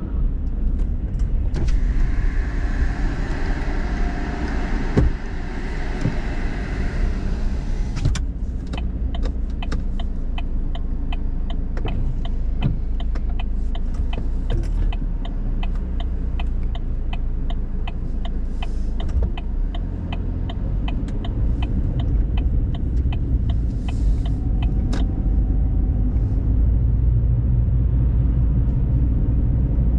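Car running, heard inside its cabin, with the turn signal ticking steadily, about two to three clicks a second, while the car waits to pull out. A hiss fills the first few seconds. Near the end the ticking stops and the engine and tyre rumble grow louder as the car drives off.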